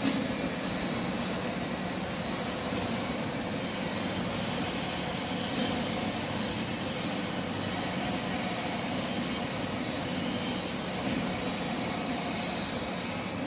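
A machine running steadily with a constant hum, joined several times by a high-pitched scraping squeal.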